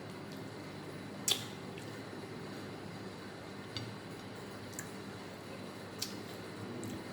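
Close-up eating sounds of rice and curry: wet squishing with a few sharp clicks, the loudest about a second in, over a steady low hum.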